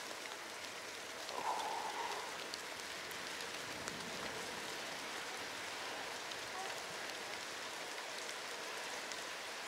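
Steady hiss of tyres rolling on a wet, rain-soaked road, with spray coming off the wheel.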